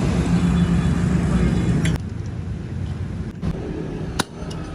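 Tractor engine running steadily, louder for about the first two seconds and then quieter, with a sharp click about four seconds in.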